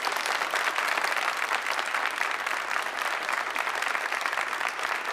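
Dense, steady applause from many people clapping, orchestra musicians among them.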